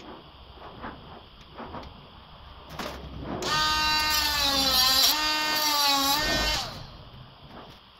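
Cordless mini angle grinder spinning up about three and a half seconds in and running for about three seconds as its disc is worked against the edge of a honeycomb grille mesh, its whine sagging in pitch as the disc bites, then stopping. Soft handling clicks come before it.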